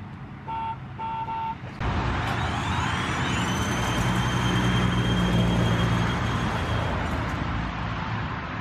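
A few short electronic beeps, then the steady run of a kids' battery-powered ride-on toy car: a faint high motor whine over a low hum, with its plastic wheels hissing on wet pavement.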